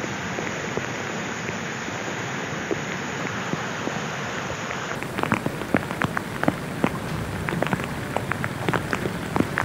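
Heavy rain pouring down as a steady hiss. About halfway in, the sound switches to another recording where rain falls with many sharp drop hits close by.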